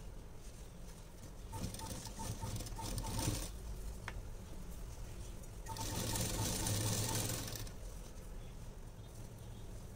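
Sewing machine stitching a seam in two short runs of about two seconds each, the needle ticking rapidly and evenly, with a pause between them.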